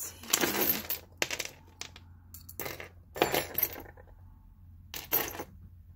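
Costume jewelry clinking and jingling: metal and beaded bracelets, rings and earrings rattling in the hand and set down on a wooden tabletop, in several short clatters a second or so apart.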